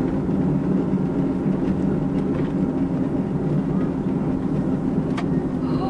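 Car driving, heard from inside the cabin: steady engine and road noise, with one sharp click about five seconds in.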